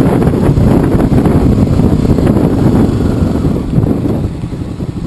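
Wind buffeting the microphone with motorcycle engine and road noise while riding. About four seconds in, the wind noise falls away as the bike slows, leaving the engine's steady low pulse.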